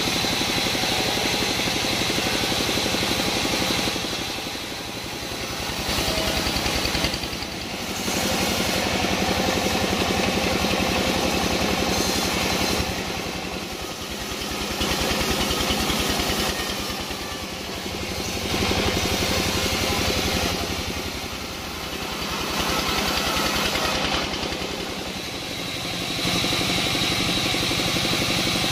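Engine-driven sawmill running steadily, its level dipping briefly about every four to five seconds.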